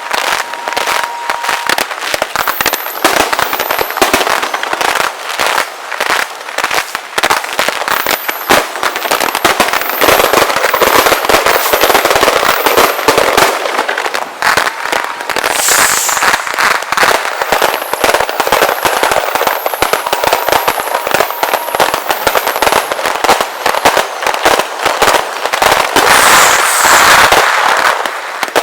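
Fireworks display in a sped-up recording: a dense, continuous barrage of bangs and crackling shells, with short falling whistles now and then.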